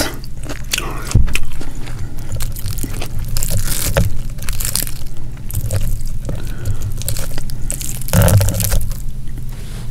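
Fingers pulling apart a whole deep-fried striped bass close to the microphone: the crisp fried skin and flesh crackle and tear in a run of small clicks, with louder cracks about a second in, midway and near the end.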